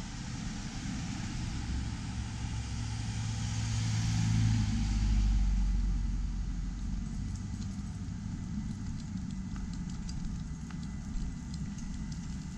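Cars driving past on a paved road. The tyre and engine noise swells to a peak about four to five seconds in as an SUV passes close by, then fades away.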